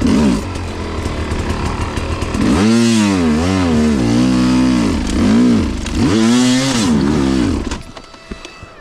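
Dirt bike engine revving up and down several times, its pitch rising and falling with each twist of the throttle, then dropping away near the end.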